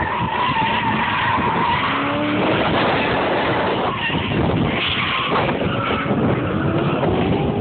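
A drifting car's engine held at high revs, with its tyres squealing and skidding. The engine note rises about two seconds in and again near the end.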